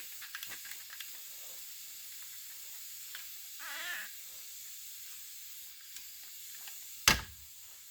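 A few small clicks, then a short wavering whine about four seconds in, and one sharp loud click near the end, over a steady hiss.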